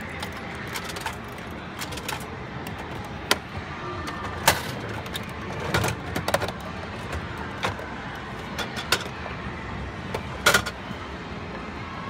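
Capsule-toy vending machine being worked by hand: a scatter of sharp plastic clicks and knocks as the turn handle is worked, the plastic capsule is taken from the chute and the capsule is handled, with the loudest knocks about four and a half seconds in and near the end. Steady background noise runs underneath.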